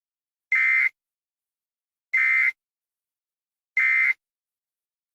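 Emergency Alert System SAME data bursts: three short, identical electronic bursts about a second and a half apart, the end-of-message signal that closes an alert.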